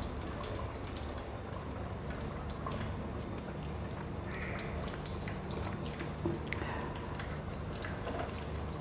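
Chicken wings shallow-frying in hot oil on a low flame: a steady low sizzle dotted with many small crackles and pops as more wings are lowered into the pan. One soft knock about six seconds in.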